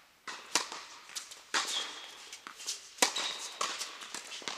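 Tennis balls struck with rackets in a doubles rally: sharp pops roughly a second apart, the loudest about half a second in, a second and a half in, and three seconds in. There are also a couple of brief high squeaks.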